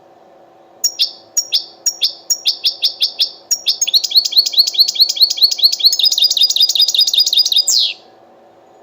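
European goldfinch singing: separate sharp notes, a few a second, that speed up about three seconds in into a fast continuous trill, ending with a falling note near the end.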